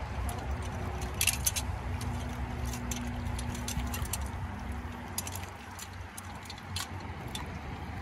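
Scattered metallic clinks and rattles of a steel body-grip beaver trap and its springs and chain being handled, over a low steady background rumble.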